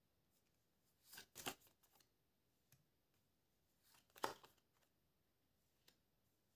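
Tarot cards being handled: two brief, faint shuffling rustles, about a second in and again a little after four seconds, with a few light ticks between.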